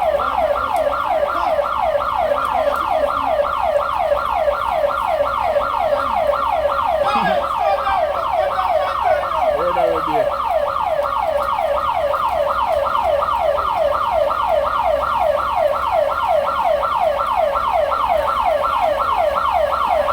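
Electronic siren sounding a rapid, steady yelp: a fast falling sweep repeated about three times a second without a break.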